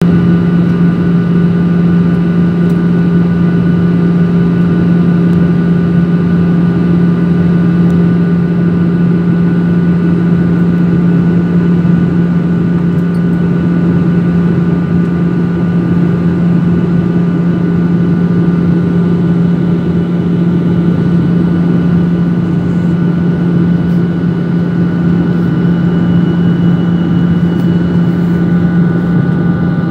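Jet airliner cabin noise in flight: a steady rush of engine and airflow with a strong low hum and a few faint, steady higher whines, unchanging throughout.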